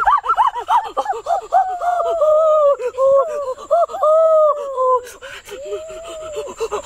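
A boy's high-pitched wordless vocalizing: quick excited gasps and yelps, then longer drawn-out wavering tones. A few faint clicks and rustles come near the end.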